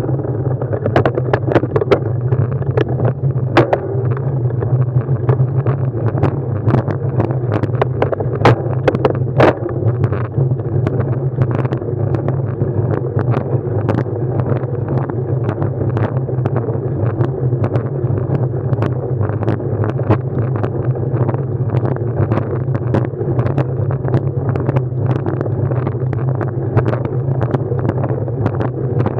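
Steady low rumble and wind noise of a ride picked up by a mounted action camera, with scattered clicks and rattles that are thickest in the first ten seconds.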